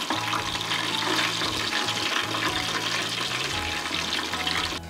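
Breadcrumb-coated shrimp deep-frying in hot oil in a pan on medium heat: a steady sizzle.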